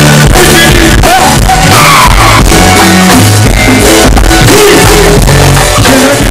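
Live go-go band playing very loud, with a driving drum and percussion beat, bass and keyboard, and a voice singing over it.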